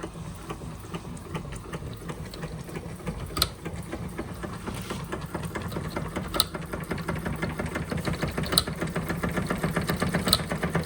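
Doll 387/3 toy steam engine running on light steam pressure just after starting, driving a Fleischmann blacksmith toy: a rapid, even clattering beat that quickens and grows louder. A sharper click stands out every two to three seconds.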